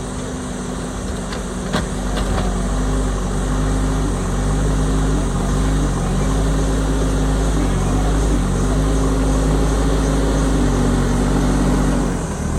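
Diesel engine of a JCB backhoe loader running under working load, its revs picking up about two seconds in and dipping briefly near the end, with a few short knocks about two seconds in.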